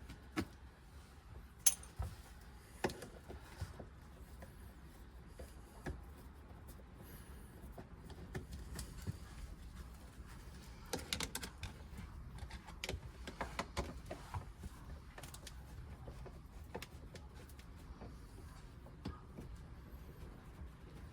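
Scattered light clicks, taps and small metallic knocks of hand work on a caravan's aluminium roof rail, with a few sharper knocks in the first three seconds and a busier run of clicks about halfway through.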